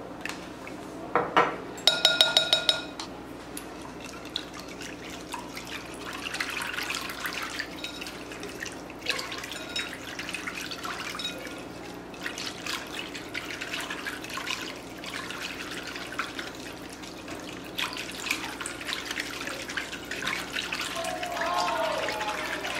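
A measuring spoon clinking against a glass bowl, a quick run of ringing taps about two seconds in, then a whisk stirring thin teriyaki sauce in the glass bowl, a wet swishing with small clicks against the glass.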